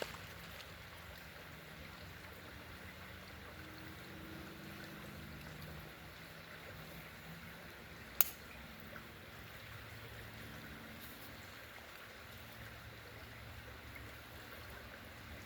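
Faint steady flow of a small creek, with one sharp click about eight seconds in.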